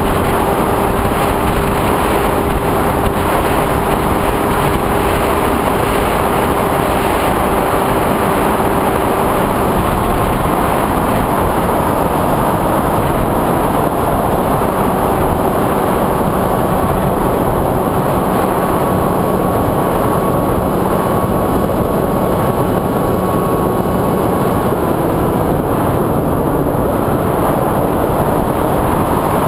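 FPV drone's propellers and motors running in flight: a steady loud rush of propeller and wind noise, with faint motor tones that drift slowly up and down in pitch.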